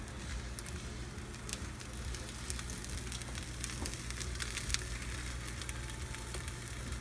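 Hot stuffed zucchini boats sizzling and crackling in their baking dish fresh from the oven, a steady hiss with scattered small pops over a low hum.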